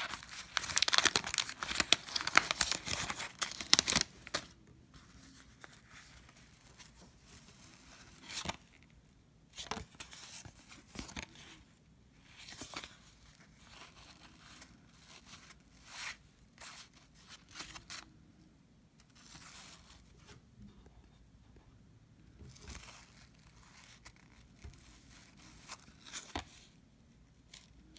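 A 1990 Fleer basketball wax-paper card pack being torn open: about four seconds of loud tearing and crinkling of the wrapper. Then come scattered short, soft rustles and clicks as the cards are handled and sorted.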